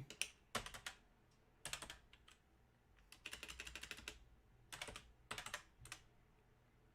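Computer keyboard typing in short bursts of keystrokes, with a longer fast run of keys in the middle.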